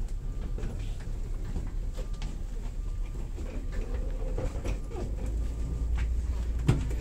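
Footsteps and the wheels of carry-on suitcases rolling and clicking along a jet bridge floor, over a steady low rumble. A sharp knock comes near the end.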